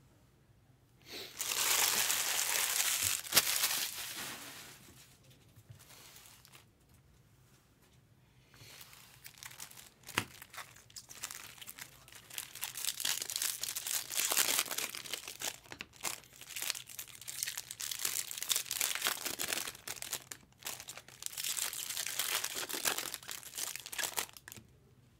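Trading-card pack wrappers being torn open and crinkled. There is a loud burst of crinkling about a second in that lasts a few seconds, then after a quieter lull a long stretch of crinkling and tearing with small clicks.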